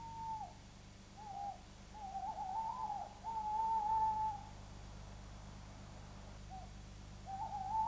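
Owl hooting: several drawn-out, wavering hoots with pauses between them, one quavering and the longest lasting about a second, over a faint steady low hum.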